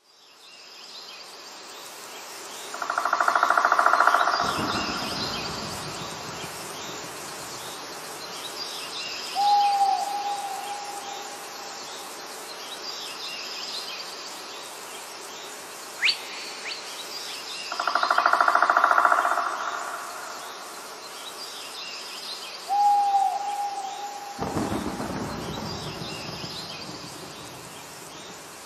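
Nature ambience of bird calls and hoots over faint high chirping, with a longer held call and a short falling call. The same sequence comes back about every fifteen seconds, like a looped sound track.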